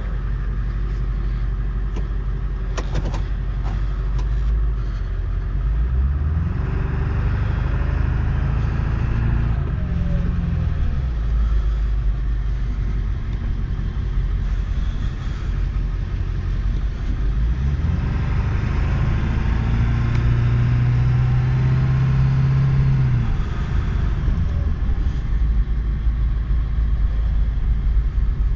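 Car engine and road rumble heard from inside the cabin while driving. The engine note rises as the car speeds up about six seconds in, falls away, rises again near eighteen seconds, holds for a few seconds, then drops.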